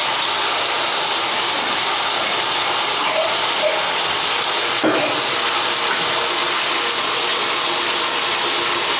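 Water running steadily from a wall tap and splashing onto a tiled bathroom floor as it is rinsed, with a single knock about five seconds in.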